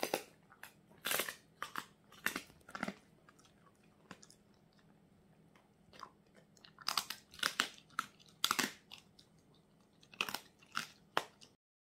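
A Jindo-mix dog chewing a hard treat: clusters of sharp crunches with short pauses between them, the longest pause a few seconds in.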